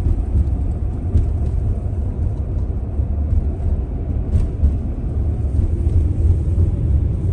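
Steady low rumble of a vehicle running, with a few faint ticks.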